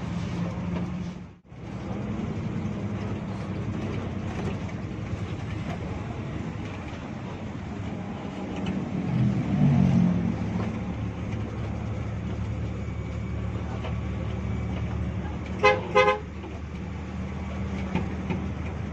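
Hino RG bus engine running steadily, heard from inside the moving bus, swelling louder about nine seconds in. Near the end, two short horn toots come in quick succession.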